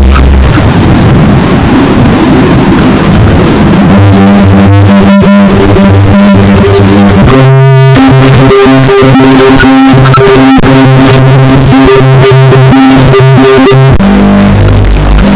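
A sneeze sample turned by Image-Line Vocodex vocoder effects into harsh, synthesizer-like tones that jump from note to note. The audio is very loud and clipped throughout, with a brief swooping sweep about halfway through.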